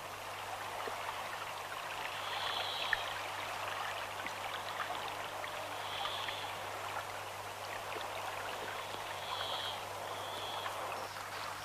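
Water flowing in a steady stream-like rush, with a short high chirp-like tone every few seconds.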